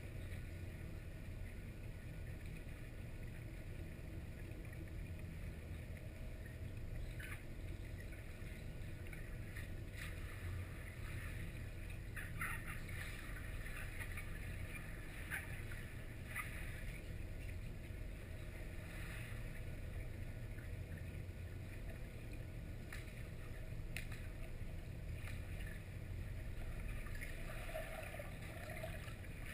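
Underwater pool ambience heard through a submerged camera: a steady low rumble with faint hiss, broken by a few scattered soft clicks.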